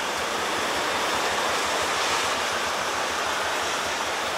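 Truck driving on a rain-soaked road: a steady rushing hiss of tyre spray and rain, with a faint low engine rumble underneath.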